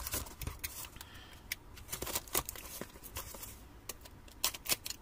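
Cardboard shipping box being handled and cut open with a utility knife: scattered scrapes, rustles and light taps of cardboard, with a few sharper clicks.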